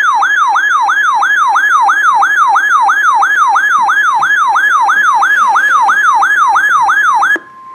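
Weather radio alert alarm: a loud warbling electronic siren, its pitch rising and falling about three and a half times a second, triggered by an incoming severe thunderstorm warning. It cuts off suddenly near the end, leaving a brief steady tone of the broadcast's 1050 Hz warning alarm.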